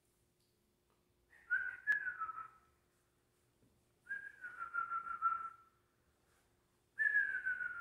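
A person whistling three long notes, each sliding a little downward in pitch, with short pauses between them.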